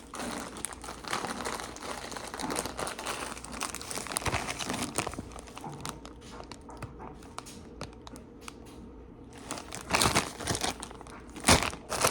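Plastic bags and packaging crinkling and rustling as items are handled and unpacked, with a few louder crunches near the end.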